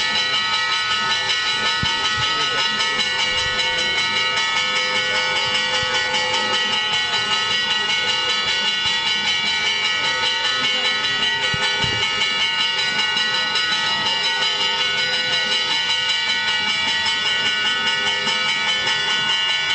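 Church bells pealing rapidly and continuously, many ringing tones held over a fast, even run of strikes, with crowd voices faint beneath.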